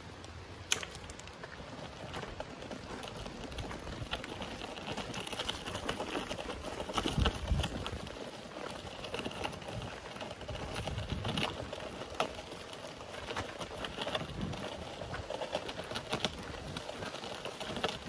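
Wheelchair rolling over a dirt track strewn with dry leaves: irregular crunching and rattling clicks from the wheels and frame, with a heavier bump about seven seconds in.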